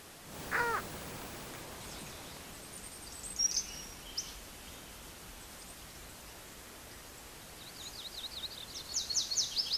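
Open-air background hiss with birds calling: one falling call about half a second in, two short high notes around three to four seconds, and a quick run of high down-sweeping notes near the end.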